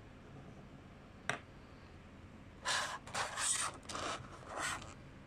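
A single sharp click, then about two seconds of crackling and scraping in several bursts from a clear plastic packaging tray being handled.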